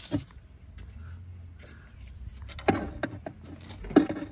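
A few sharp clicks and knocks, the loudest about two-thirds of the way in and near the end, as a screwdriver is worked around the rim of a newly fitted rubber suspension bump stop in its steel cup, with a low steady hum underneath.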